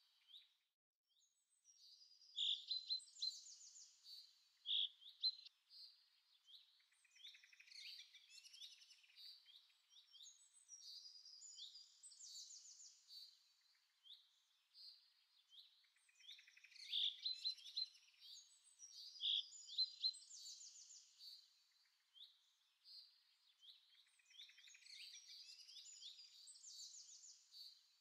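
Birds chirping and singing, quick high chirps and trills, in a recording that loops about every 14 to 15 seconds; no sounds of the stirring or cutting are heard.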